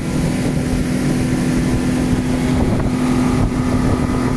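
Motorboat engine running steadily at speed, a constant hum over a heavy low rumble, with wind buffeting the microphone.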